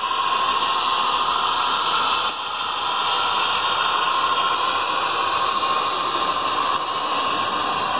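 Athearn Genesis SDP40 HO-scale model diesel and its passenger cars rolling on the layout track: a steady hiss of wheels on rail and drive with a faint steady whine, dipping briefly about two seconds in.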